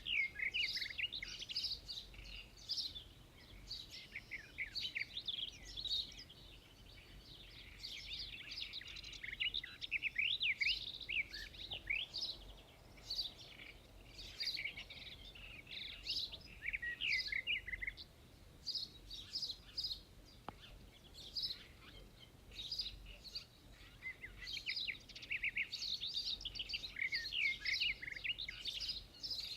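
Small birds chirping during feeding: many short, quick chirps overlapping in busy bursts, with a thinner, quieter spell past the middle.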